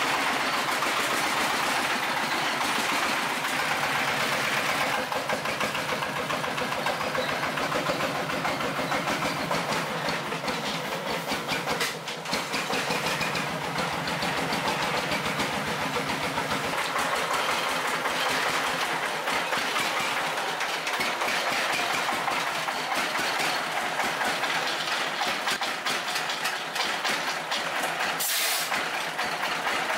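Brush cutter engine running steadily at high speed, with a fast buzzing pulse. A short hiss comes near the end.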